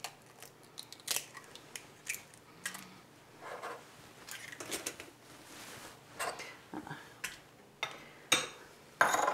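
Eggs being cracked into a bowl by hand: scattered light taps and clicks of shell against the bowl and counter.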